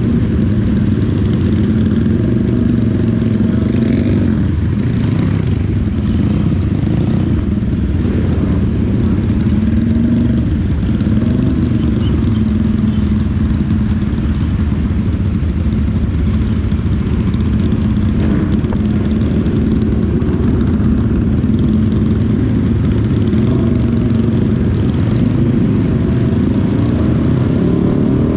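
Honda CB 250 motorcycle engine running under way, its note rising and falling slightly with the throttle, over a steady hiss of wind and road noise.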